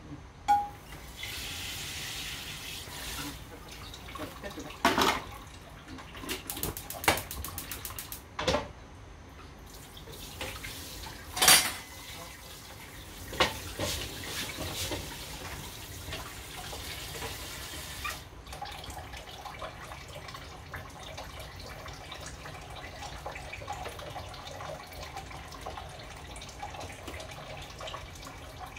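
Kitchen tap running into a sink, with several sharp knocks and clatters of kitchenware, the loudest about eleven seconds in.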